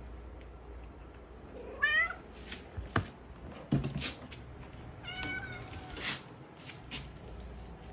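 Calico mixed-breed cat meowing twice: a short rising meow about two seconds in and a longer one around five seconds in, with a few sharp clicks between them.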